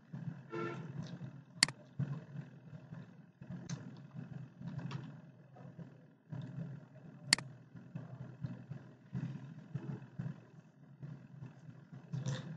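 A low, uneven background rumble, with two sharp clicks of a computer mouse about five and a half seconds apart, louder than anything else.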